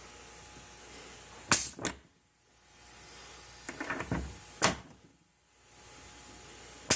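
Cejn one-touch quick couplers on a 100 psi compressed-air manifold, plugs snapping in and out: three sharp clicks a couple of seconds apart, with a faint air hiss between them.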